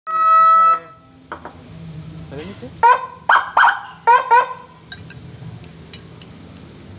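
A 200 W electronic siren with Whelen-style tones being tested. It opens with a steady horn blast of just under a second, then gives a series of short chirps and rising whoops over the next few seconds.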